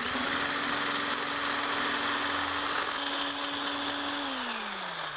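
Hand-held stick blender with a whisk attachment running steadily, whipping heavy cream in a glass measuring cup toward stiff peaks, with a churning hiss from the whisk in the cream. About four seconds in, the motor's pitch slides down as it winds down.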